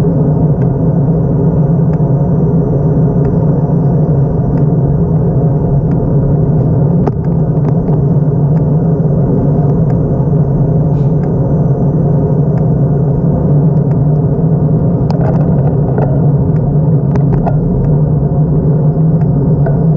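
Steady low wind and road rumble on the microphone of a camera riding on a moving bike, with scattered sharp clicks and rattles that come more often after about fifteen seconds.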